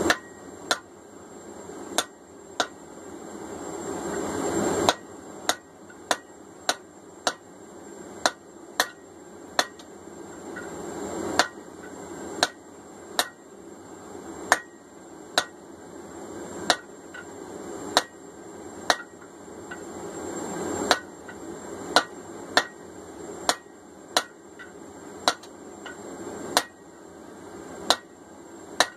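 Blacksmith's hand hammer striking a red-hot steel bar laid over a hardy cutoff tool in the anvil, cutting the bar off. The blows are sharp and separate, about one a second and sometimes two in quick succession.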